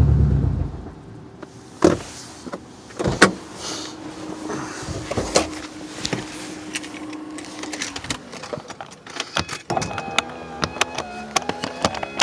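Subaru EJ255 turbocharged flat-four engine running, then shutting off within the first second. Afterwards come scattered sharp clicks and knocks, with a faint steady whine partway through.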